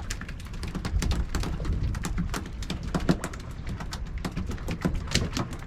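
Freshly caught mackerel flapping on the boat's deck: quick, irregular taps and slaps, several a second, over a low steady rumble.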